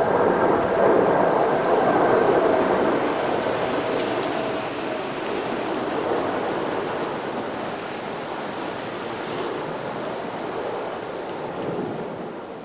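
Road traffic starting across the railroad grade crossing once the gates lift, a steady rushing of tyres with wind on the microphone, slowly dying away.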